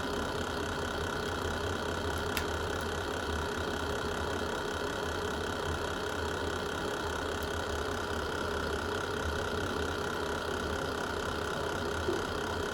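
Fireplace fire burning with a steady low rumble, with a sharp crackle pop about two seconds in and another near the end.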